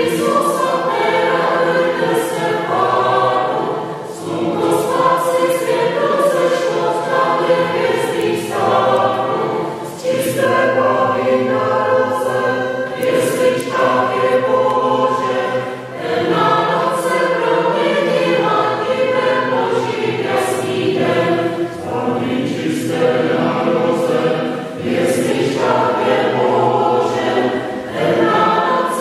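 Mixed choir of men's and women's voices singing in Czech, in phrases of about six seconds with short breaks for breath between them.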